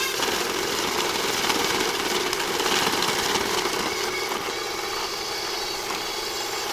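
A machine motor running steadily at an even level, switched on just before and cutting off suddenly afterwards.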